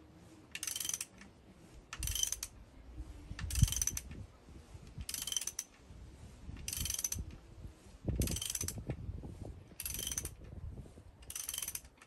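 Socket ratchet clicking in short runs, about one every one and a half seconds, as it is swung back and forth to wind a bolt that draws a cast iron valve guide out of the engine block. Low creaks and a sharp knock about three and a half seconds in come from the puller working under load.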